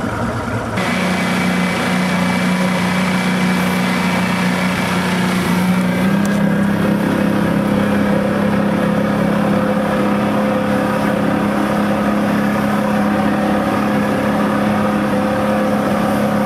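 Motorboat engine running steadily, heard from aboard; its pitch steps up about six seconds in and then holds.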